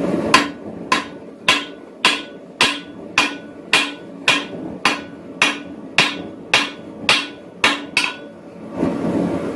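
Hand hammer striking red-hot bar stock held on the edge of a steel anvil plate: about fifteen even blows, just under two a second, each with a short metallic ring, forging a set down.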